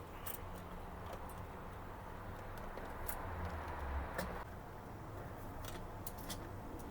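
Plastic printer parts being handled: scattered sharp clicks and a rubbing, sliding sound from about three to four and a half seconds in, as a part is worked out of the printer, over a low steady hum.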